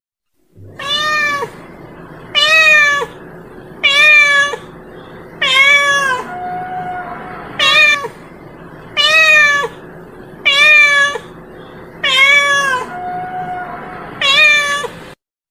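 Domestic cat meowing over and over, about nine loud meows roughly every second and a half, each rising then falling in pitch, with a couple of fainter drawn-out notes between them.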